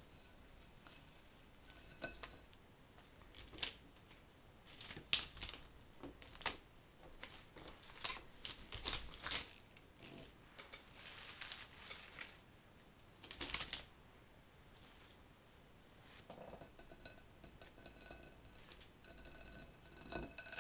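Cut flowers being handled and worked into an arrangement: irregular crisp rustles of leaves and stems with sharp clicks, busiest in the first two-thirds and fainter near the end.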